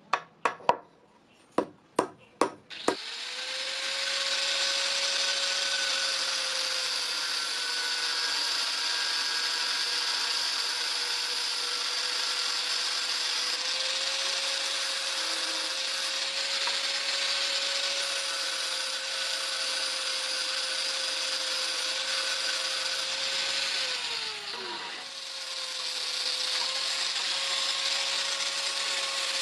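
A handful of sharp knocks, then an electric grinder starts about three seconds in and runs steadily, grinding metal with a hissing rasp. Near the end its pitch sinks as the motor slows, and then it comes back up to speed.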